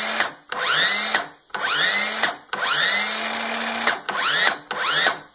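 Milwaukee M18 cordless circular saw running free, triggered again and again in short bursts: each time the motor whines up in pitch and is then stopped abruptly by its electric brake, about six times, one run longer near the middle. The repeated spin-up and braking pulls current through the too-cold battery to warm it enough to charge.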